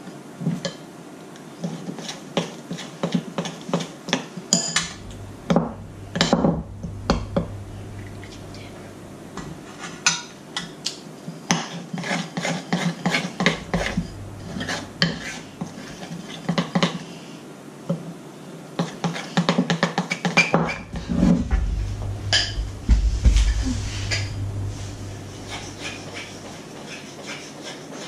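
Kitchen utensils clinking, knocking and scraping against a mixing bowl while cake batter is worked, as a run of many quick irregular clicks with stretches of low rumble.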